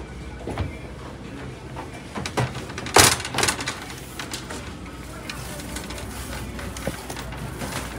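Stainless steel trash can being handled and set into a plastic shopping cart: a few light knocks, then one loud clatter about three seconds in with a smaller knock just after, and scattered small clicks over a steady low background hum.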